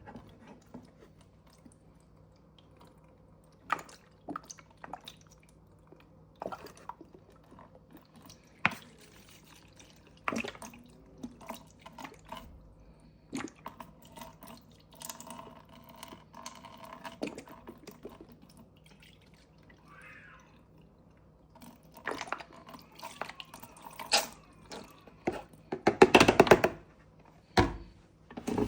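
Household cleaning sounds: scattered knocks and clicks of handling, with dripping and splashing water. A louder noisy burst comes about two seconds before the end.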